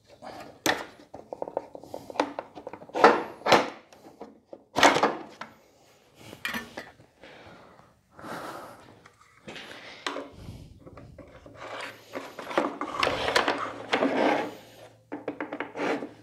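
Handling clatter from a Metabo TS 254 table saw's parts: a run of sharp metal and plastic clunks and clicks in the first five seconds, then longer scraping and rubbing as the rip fence is set on the aluminium table and slid along it near the end.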